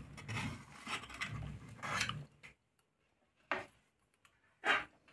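A knife scraping softly along the inside edge of an aluminium cake tin, loosening the baked cake from the sides. This is followed by two short knocks about a second apart.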